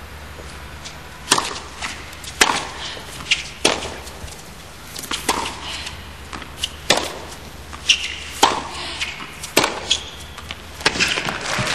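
Tennis rally: racket strikes on the ball about once a second, each a sharp crack. Crowd applause begins near the end as the point finishes.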